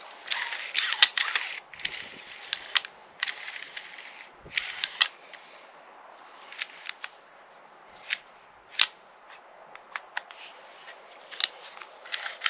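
Recoil starter of a STIHL MS 462 C chainsaw, in its plastic fan cover off the saw, worked by hand: about four short rasps in the first few seconds as the newly fitted cord is pulled out and rewinds onto the spring-loaded pulley, then scattered sharp clicks and taps of the plastic cover being handled.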